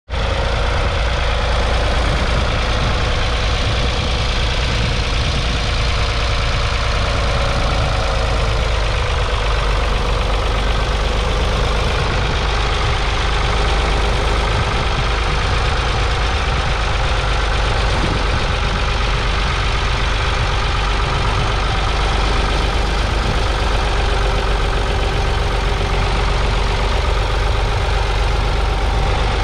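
Ford 4600's 3.3-litre three-cylinder diesel engine running steadily under load, pulling a two-furrow mounted plough through the soil.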